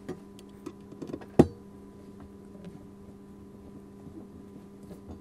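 A few small metallic clicks and taps as a screw, spacer and screwdriver are handled against a steel Molle panel, the sharpest about a second and a half in, over a steady low hum.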